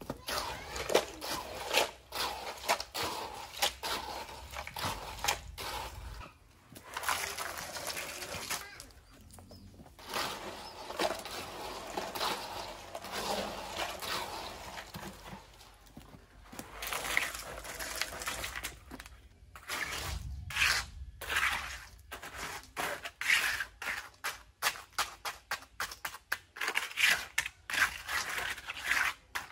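Concrete being mixed and worked by hand: irregular scraping and knocking of a hand tool in wet sand, stone and cement, with the knocks coming thicker and quicker in the second half.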